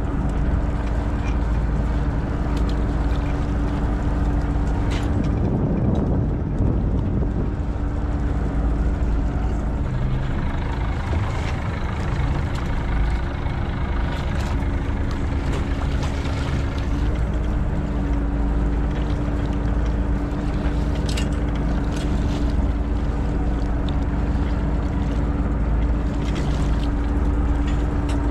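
A fishing boat's engine and longline hauler run steadily while the groundline is hauled aboard: a low drone with a steady hum, and now and then a brief sharp click.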